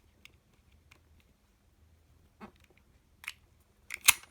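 Master Lock combination padlock being worked: a few faint clicks from the dial being turned and the lock being handled, with a sharper click near the end.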